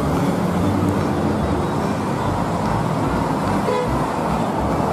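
Intercity coach bus driving past on a busy road: its engine running under steady traffic noise, with a short horn toot a little after the middle.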